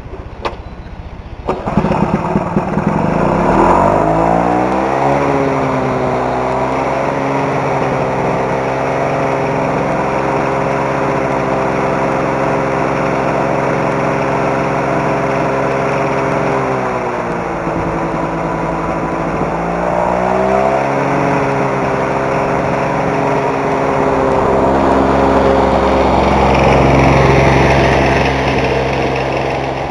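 Lawn-Boy 4 hp two-stroke mower engine catching about a second and a half in, revving up, then running steadily, with its speed dipping and picking up again about two-thirds of the way through. The owner suspects the engine's sound is rod knock from a connecting rod with play on the crankshaft.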